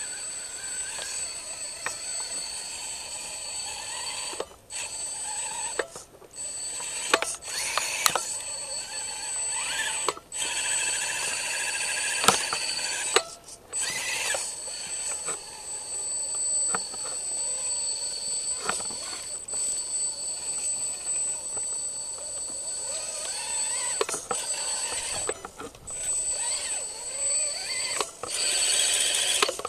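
Electric motor and gear drivetrain of a radio-controlled crawler truck whining as it crawls through mud and water, cutting out briefly several times and rising and falling in pitch as the throttle changes.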